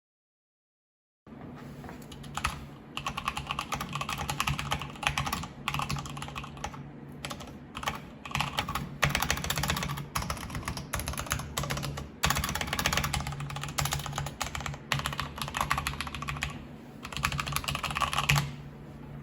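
Fast typing on a mechanical keyboard fitted with lubed Feker Holy Panda tactile switches, a dense run of key clacks that starts about a second in and stops near the end, with a steady low hum underneath.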